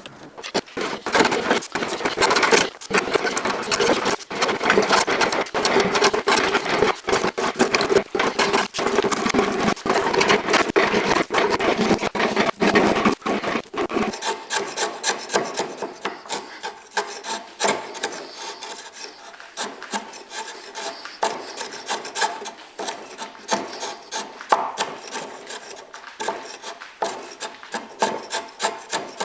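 Hand plane shaving across a bur oak slab to flatten it, stroke after stroke of rasping wood. About halfway through the strokes turn lighter and quieter.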